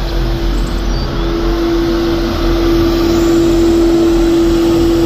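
Truck-mounted street sweeper on a Mercedes-Benz chassis working the street, its engine and sweeping gear running with a steady whine. It grows louder about halfway through as the sweeper comes closer.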